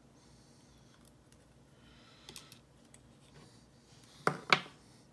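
Small metal parts of a disassembled pin-tumbler lock being handled: a few faint ticks, then two sharp clicks a quarter-second apart near the end.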